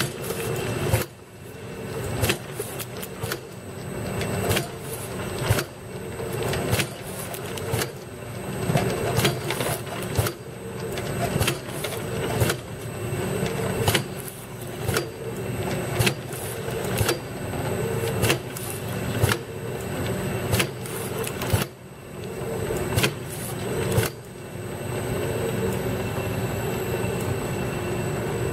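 Automatic wrap-around bottle labeling machine running: a steady motor and conveyor hum with a sharp click about once a second as it cycles. Near the end the clicking stops and only the steady hum is left.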